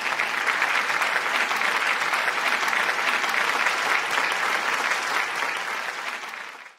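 Audience applauding, a steady sustained clapping that fades out near the end.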